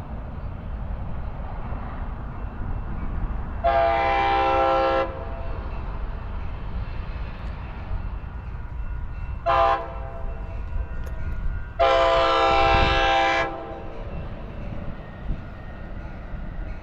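Amtrak Pacific Surfliner train sounding its horn as it approaches the station: a long blast, a short one, then a longer one.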